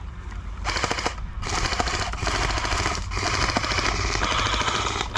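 Airsoft guns firing on full auto in long rapid bursts, starting about a second in and broken by short pauses.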